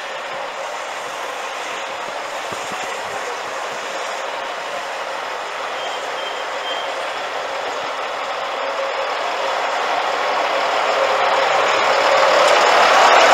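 Narrow-gauge Baguley diesel locomotive running as it comes slowly up and passes close by, as a steady mechanical noise that grows louder over the last few seconds.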